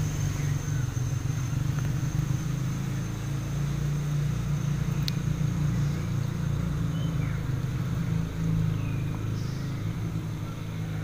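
Steady low motor hum running throughout, with a thin steady high tone above it and a single light click about five seconds in.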